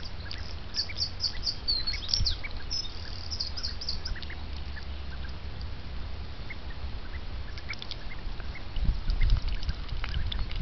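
Three-week-old ducklings peeping: a quick run of short, high peeps, about five a second, in the first few seconds, then scattered fainter peeps. A low rumble on the microphone comes in near the end.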